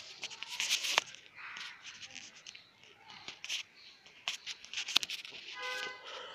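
Handling noise from a phone being moved about while filming: scratchy rubbing and scraping on the microphone with sharp clicks, the sharpest about a second in and about five seconds in. A short pitched tone sounds just before the end.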